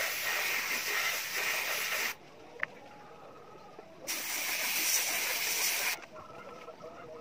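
Airbrush spraying paint, heard as two hisses of about two seconds each with a pause between them. A single sharp click comes in the pause.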